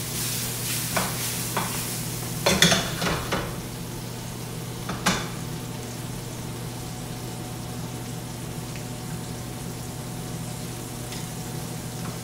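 Asparagus and other vegetables sizzling steadily in a frying pan on a gas burner. A few clatters of utensils against the pan come in the first five seconds, the loudest about two and a half seconds in.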